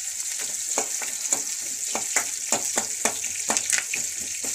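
Chopped onions and curry leaves sizzling in hot oil in a metal kadai while being stirred, a steady sizzle with sharp scrapes and clicks of the spoon against the pan about four times a second.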